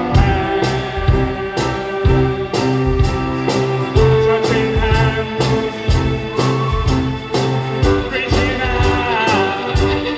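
Live band playing a song with violins, acoustic guitar and a drum kit, over a steady beat of about two drum hits a second.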